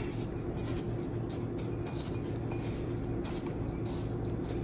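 Fingertips rubbing and breaking up a butter crumb topping in a ceramic bowl: soft irregular scratching and small clicks against the bowl, over a steady low hum.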